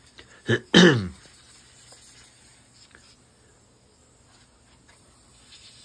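A man clearing his throat about a second in: a short catch, then one louder throat-clearing sound that drops in pitch. After it come only a few faint clicks.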